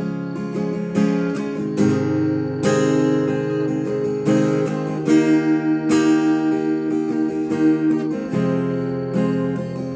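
Solo acoustic guitar playing an instrumental passage with no singing: chords struck about once a second and left ringing, with quicker repeated picking through the middle.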